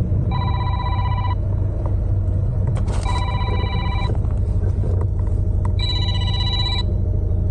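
An electronic ringing tone repeating about once every two and a half seconds, each ring lasting about a second, over a steady low rumble.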